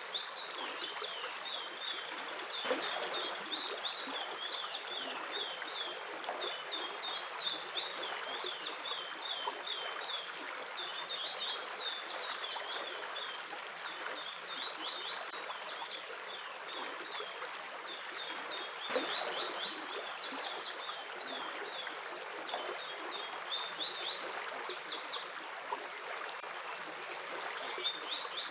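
A stream running steadily, with small birds chirping over it in quick, short series of notes that repeat every second or two.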